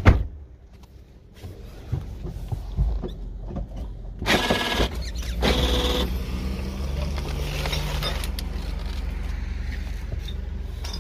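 Sounds inside a stopped car: a sharp thump at the start, then knocks and handling noise, two short loud noisy bursts about halfway through, and a steady low engine hum from then on.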